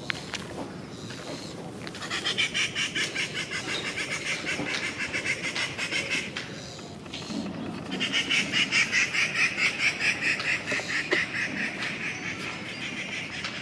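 Rufous treepie chattering in two long runs of rapid repeated notes, about four a second, with a short break between them.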